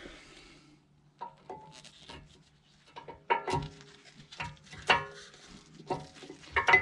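Steel brake pad clinking and knocking against the metal caliper bracket as it is worked into place: a string of irregular, briefly ringing metallic clinks.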